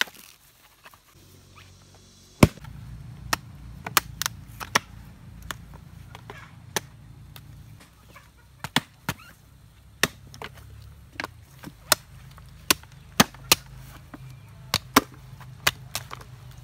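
Machete blade chopping into mature coconuts, husk and shell: a string of sharp chops at an irregular pace of about one or two a second, starting about two seconds in, over a low steady hum.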